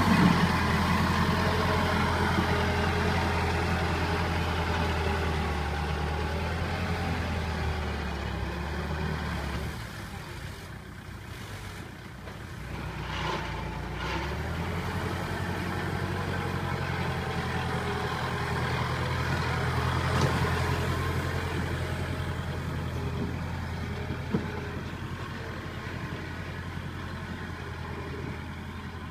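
Kubota tractor's diesel engine running under load as its front blade pushes dirt, a steady low drone. The engine eases off for a few seconds about ten seconds in, with a short rush of noise around thirteen seconds, then picks up again.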